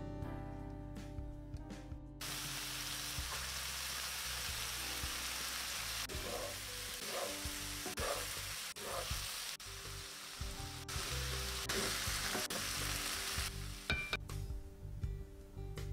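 Button mushrooms with garlic and butter sizzling in a cast-iron skillet, stirred with a wooden spoon. The sizzle starts abruptly about two seconds in and cuts off suddenly near the end.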